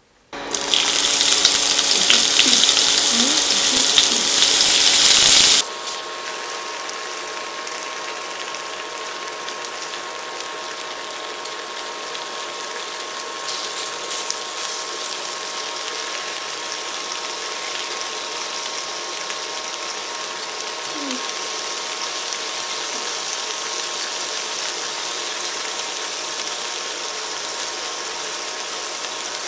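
Diced onion and bacon sizzling in hot oil in a non-stick frying pan. A loud burst of sizzling lasts about five seconds and then cuts off sharply, followed by a steadier, quieter sizzle with a faint steady tone under it.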